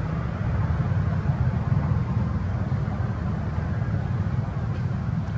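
Steady low outdoor rumble with a fainter hiss above it, unbroken throughout.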